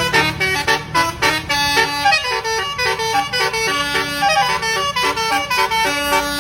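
Telolet bus horn playing a melody of short, rapidly changing horn notes in quick succession.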